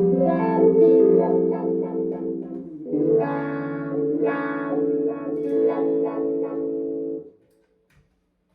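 Electric guitar through a Dunlop Cry Baby wah pedal and Mesa Nomad 100 amp, two phrases of ringing chords with the tone sweeping bright and dark as the pedal rocks. The playing stops about seven seconds in, leaving a faint amp hum.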